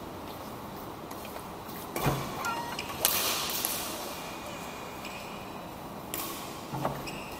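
Badminton rally in an echoing hall: a few sharp racket strikes on the shuttlecock, the loudest about three seconds in, with short squeaks of shoes on the court floor.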